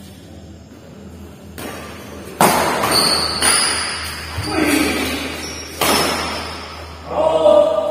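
Badminton rackets smashing a shuttlecock back and forth in a fast rally, several sharp cracks ringing through a large hall. Voices shout around the middle and again near the end.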